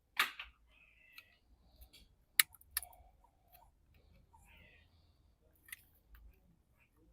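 A few sharp clicks and taps, the loudest about two and a half seconds in, from the car alarm siren unit being handled.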